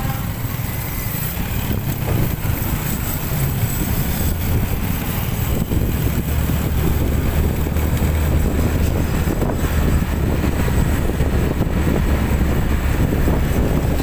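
Steady low rumble of vehicle engines with road and wind noise, heard from close behind a low-loader truck carrying a bulldozer; the low rumble grows heavier about halfway through.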